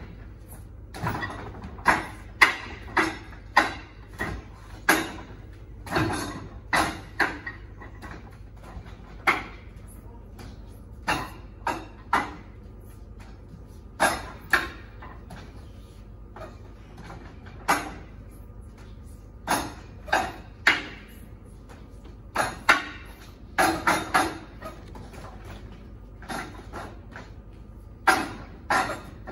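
Wing Chun wooden dummy (muk yan jong) being worked: sharp, irregular wooden knocks as forearms and hands strike its arms. The knocks come singly and in quick runs of two or three, with short pauses between.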